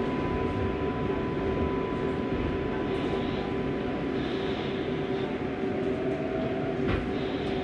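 Inside an R188 subway car: the steady running hum of the train, with a constant tone, as it slows to a stop at a platform. A brief rising whine comes about six seconds in.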